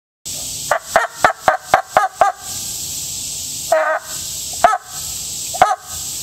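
Homemade plastic-cup duck noisemaker: wet fingers sliding down a cotton string threaded through the cup's bottom make the cup squawk like a quacking duck. A quick run of about seven short quacks in the first two seconds, then single longer quacks about a second apart.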